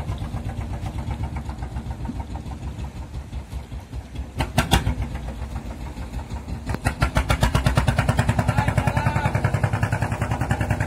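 Fishing boat's engine running with a rapid, even beat, then growing louder and faster from about seven seconds in as it is throttled up. A couple of sharp knocks sound about four and a half seconds in.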